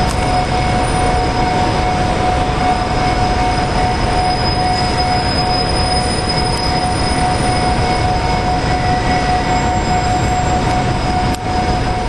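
Ferry's machinery droning steadily on the enclosed car deck, a loud even rumble with a steady high whine running through it.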